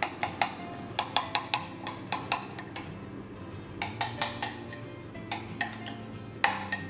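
Metal spoon clinking against the sides of a small glass bowl while stirring a thick yogurt dip: irregular sharp taps in quick runs, several a second at times, with short pauses between the runs.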